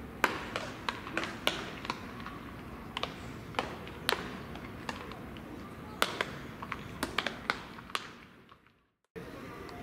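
Baseballs popping into leather gloves during a game of catch: sharp, irregular pops, several a second, from more than one pair of throwers, over a steady open-air background. The sound fades out about eight seconds in.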